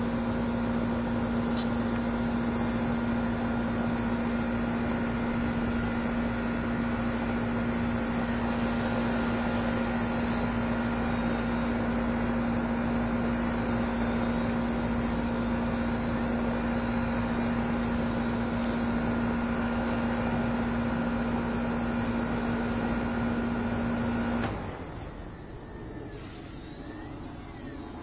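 Blade Nano CP X micro RC helicopter in flight: a steady motor whine, with a higher whine over it that wavers up and down about once a second. The motor sound cuts off suddenly about 24 seconds in, leaving a quieter hiss.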